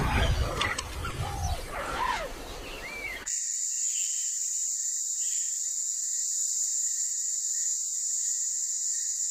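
Wild-animal soundscape of bird chirps and other short animal calls over a low rumble. About three seconds in it cuts off abruptly, and a steady, high-pitched insect drone takes over, with no low sounds beneath it.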